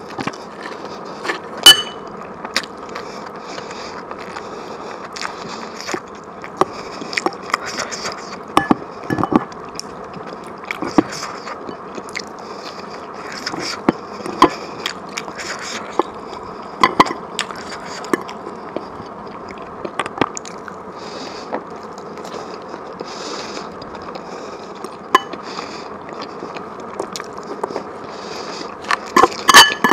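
Close-miked chewing and mouth sounds of someone eating, with scattered sharp clicks over a steady hiss. Near the end comes a quick cluster of ringing clinks of cutlery on a plate.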